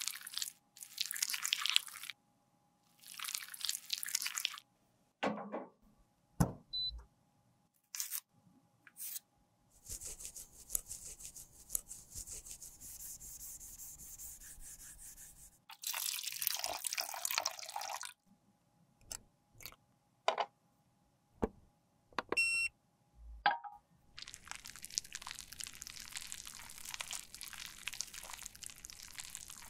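Close-up handling of makeup products: several bursts of scraping and crumbling, scattered small clicks and taps, a steady hiss for a few seconds in the middle, and a short ringing clink near the end.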